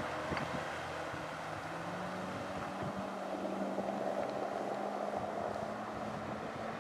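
Outboard motor of a small bowrider running under power as the boat pulls away and speeds up. Its engine note rises a little about two seconds in and then holds steady, with wind on the microphone.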